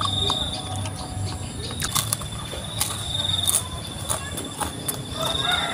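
Mouth sounds of a person eating a Cornetto ice cream cone: soft licking and lip smacks with a few sharp clicks, over a steady high-pitched trill.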